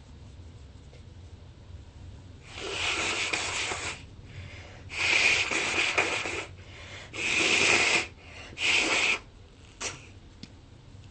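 A person with bronchitis in a harsh sneezing fit: a quieter, rasping breath drawn in, then three loud, harsh sneezes in quick succession.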